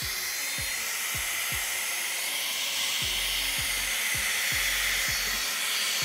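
Heat gun blowing steadily, shrinking heat-shrink tubing over soldered wire connections on a car stereo wiring harness. Background music with a thumping bass beat plays underneath.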